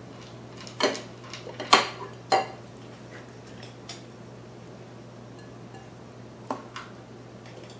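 Sharp glass clinks as a glass mixing bowl knocks against the rim of a glass measuring pitcher while thick blackberry sauce is poured, three louder clinks in the first few seconds. A silicone spatula then works the bowl, with two lighter knocks near the end.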